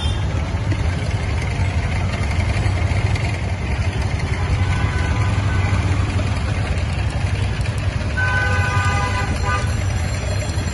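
Steady low street-traffic noise, with a vehicle horn sounding for about a second and a half near the end.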